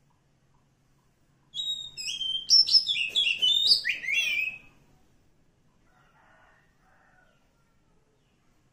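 Oriental magpie-robin singing a single burst of rapid whistled notes that swoop up and down in pitch, lasting about three seconds from about a second and a half in.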